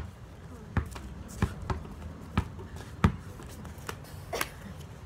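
A basketball being dribbled on a concrete driveway: a series of sharp bounces, a little under a second apart and slightly uneven.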